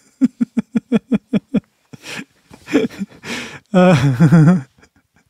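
A man laughing: a quick run of about ten short "ha" pulses in the first second and a half, then a few breathy laughs and a longer voiced laugh about four seconds in.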